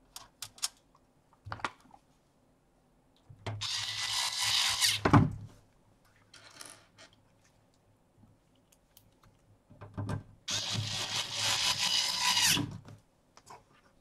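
Cordless electric screwdriver whirring in two runs of about two seconds each, driving screws through a DVR's steel base plate into a hard drive's mounting holes; the first run ends with a knock. Small clicks of handling come before and between the runs.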